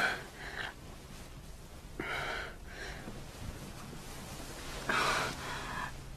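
A heavily pregnant woman gasping sharply three times, about two and a half seconds apart, as labour begins.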